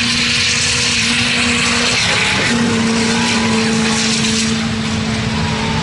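Turbo-diesel mega mud truck engine held at high revs at full throttle through the mud, a steady loud drone that breaks off briefly about two seconds in and then holds again.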